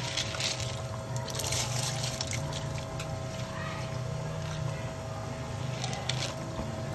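Soaked basmati rice poured from a bowl into a steel pot of boiling meat stock, splashing and bubbling in a few surges, over a steady low hum.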